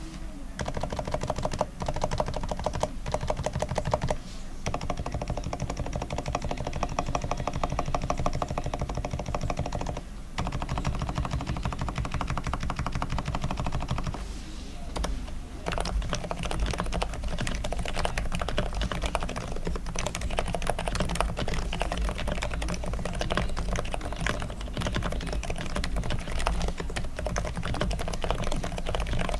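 ABKO KN10BT Bluetooth electro-capacitive (Topre-style) keyboard being typed on in a fast continuous run of keystrokes, with a few short pauses. These are the keystrokes after a full lube: slider O-rings replaced and sliders lubed, springs lubed, stabilizer wires levelled and greased.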